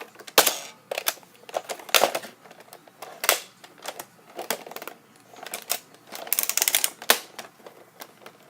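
Irregular plastic clicks and clatters from a Nerf zombie shotgun blaster being handled and worked, with a quick run of rattling near the end, as its mechanism is checked for a jam.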